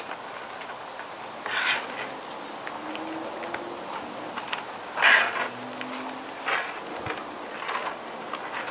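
Road bike tire bead being worked off the wheel rim with a tire lever: four short rubbing scrapes, the loudest about five seconds in, over a steady background hiss.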